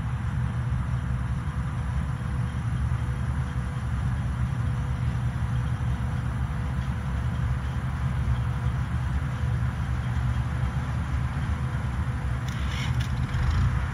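Bizon Rekord Z058 combine harvester running at work, its engine and threshing machinery a steady low drone with a faint, thin steady whine above it.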